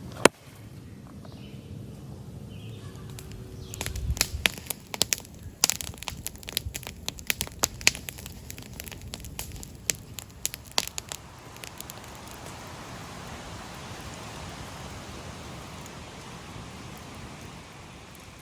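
A campfire crackling: irregular sharp snaps and pops for several seconds, then a steady rushing hiss.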